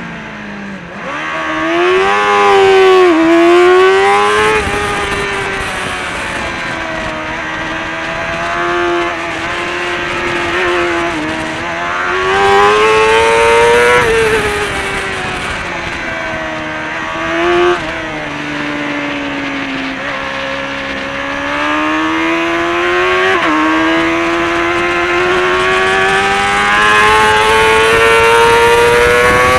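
Onboard sound of a Kawasaki ZXR400's inline-four engine at racing pace, its pitch climbing and falling as it accelerates and slows. Several abrupt pitch jumps mark gear changes, heard over steady wind rush.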